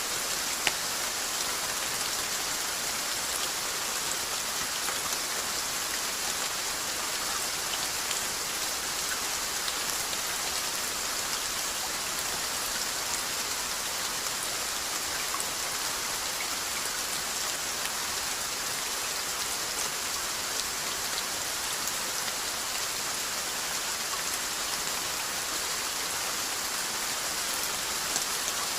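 Steady rain falling: an even hiss with scattered drop taps.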